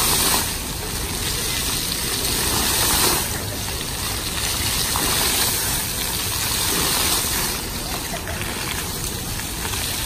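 Spray from a lit fountain's rows of water jets, a steady rush of splashing water that swells and eases every few seconds as the jets rise and fall.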